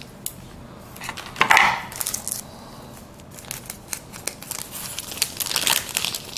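Plastic wrapper of a trading-card pack crinkling and tearing as it is opened by hand, with a loud rustling burst about a second and a half in and another near the end.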